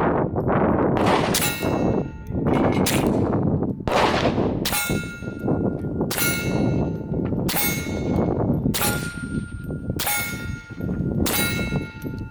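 Suppressed .22LR pistol firing about once a second, around eleven times, each shot answered by the clang and ring of a steel target being hit.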